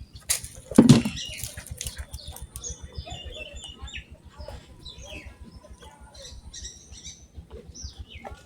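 Small birds chirping in short stepped notes, with one loud sudden thump about a second in.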